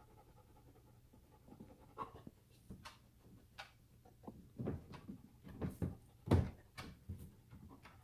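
A dog in labor shifting and standing up in a plastic whelping pool: irregular soft knocks and rustles of paws and body on the plastic and the bedding, starting about a second and a half in, with the loudest knock about six seconds in.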